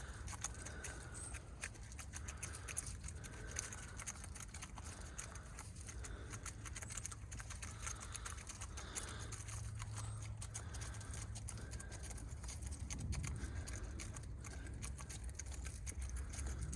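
Hens foraging: a patter of many small pecks and scratches, with a few short soft clucks now and then.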